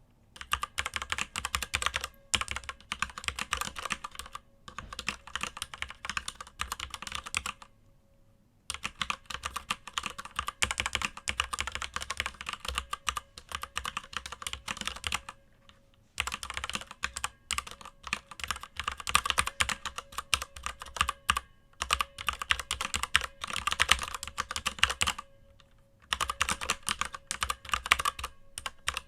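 Fast typing on a DIATEC FILCO Majestouch 2 mechanical keyboard with unlubricated Cherry MX Red linear switches: a dense run of key clacks, broken by short pauses about 8, 16 and 25 seconds in.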